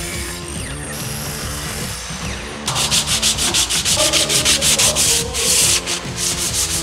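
Hand sanding a plywood board with a sheet of sandpaper: quick back-and-forth rasping strokes, several a second, starting a little under three seconds in.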